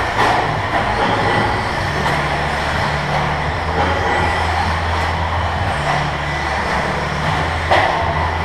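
Electric 1/10-scale 2WD RC buggies racing on an indoor clay track: motor whine and tyre noise over a steady low hum. A sharp knock comes near the start and another near the end.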